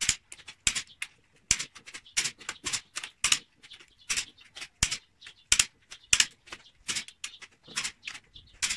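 Long-handled ratchet wrench clicking in short sharp strokes, two or three a second, as the cylinder head bolts of a Mitsubishi 4D33 diesel engine are tightened.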